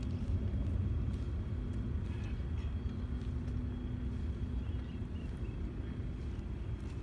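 Shoes of a four-cadet color guard marching in step on concrete, faint footfalls over a steady low outdoor rumble.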